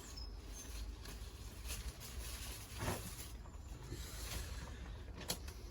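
Faint rustling and handling of tomato plant foliage during trimming, with scattered light ticks and one sharp click a little after five seconds in.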